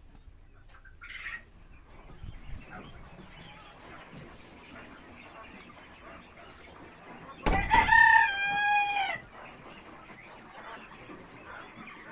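A male coturnix quail crows once, about seven and a half seconds in: a loud call of a few notes, each falling in pitch, lasting under two seconds.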